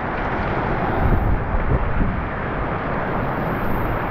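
Steady rushing noise of wind and driving rain on the microphone, with sea spray, aboard a fishing boat at sea.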